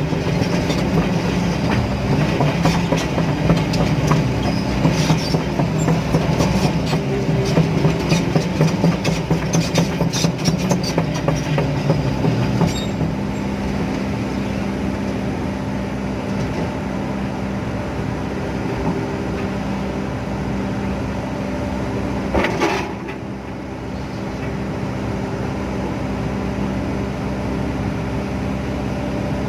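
Excavator's diesel engine running steadily while its steel parts clank rapidly and irregularly for the first dozen seconds or so; after that the engine runs on more evenly, with one short sharp noise about three-quarters of the way through.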